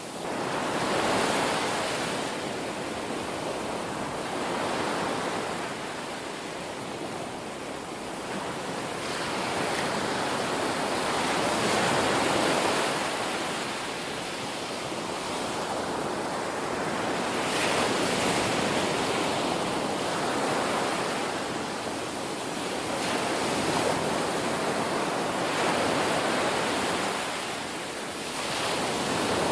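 Ocean waves breaking and washing on a shore, the surf swelling and ebbing every few seconds.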